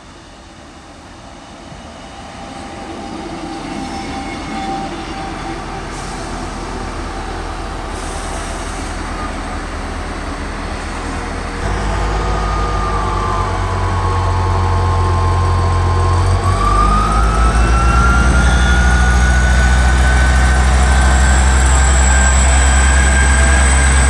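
South Western Railway diesel multiple unit running past along the platform. It grows steadily louder, and about halfway in its underfloor diesel engine note comes in strongly, with a whine that dips and then climbs steadily in pitch as the train picks up speed.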